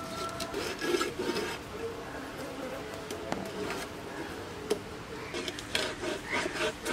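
Scales being scraped off a large fish drawn against an upright blade fixed in a wooden board: irregular rasping strokes with small sharp clicks, in spells about a second in and again near the end.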